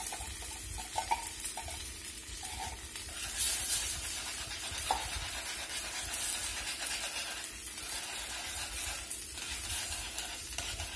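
Metal tongs stirring condensed cream of mushroom soup into hot beef broth and onions in a stainless steel skillet, with the liquid sizzling steadily underneath. There are scattered scrapes and clicks of the tongs against the pan, loudest about three and a half seconds in.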